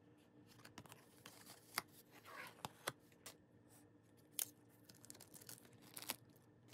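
Faint handling sounds of plastic photocard sleeves and a hard card holder: soft crinkling and rustling with scattered small clicks and taps, over a steady low hum.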